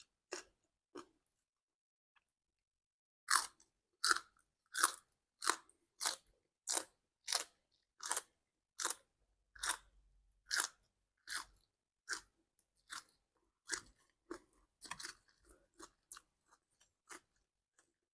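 Close-up crunching bites of crisp food being chewed, in a steady rhythm of about three crunches every two seconds that grow fainter and more irregular near the end.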